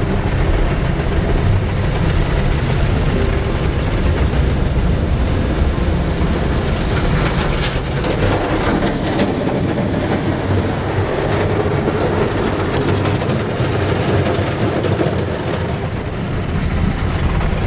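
Water jets and spinning brushes of an automatic car wash working over a car, heard from inside the cabin: a steady, loud rumble and hiss.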